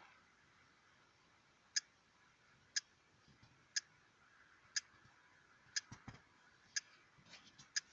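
A clock ticking, one sharp, quiet tick each second, starting a little under two seconds in. A few softer clicks and rustles fall between the ticks around six seconds and near the end.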